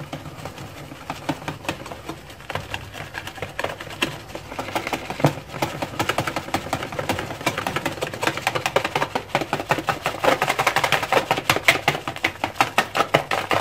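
Wire whisk beating a runny egg-and-flour batter in a plastic bowl: rapid clicking strokes of the whisk against the bowl, growing quicker and louder from about four seconds in.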